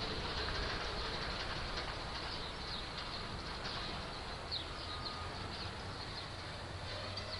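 Freight train of boxcars rolling past, a steady noise of steel wheels running on the rails.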